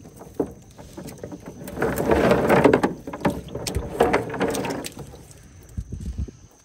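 Water splashing and dripping as a wet net is shaken out into a plastic tub of water, dropping crab and shrimp in. The splashing is loudest about two seconds in, with a couple of sharp knocks around four seconds, then dies down to dripping.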